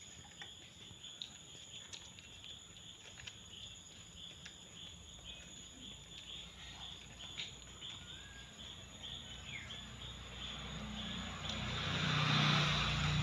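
Faint outdoor ambience: a steady high hiss with scattered small clicks and a couple of brief chirps. It swells into a louder rush of noise near the end.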